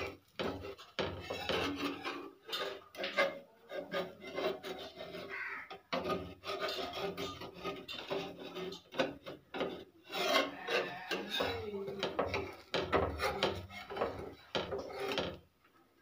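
Metal spatula scraping repeatedly against a tawa around the edge of a dosa, loosening it from the pan, in irregular strokes with brief pauses.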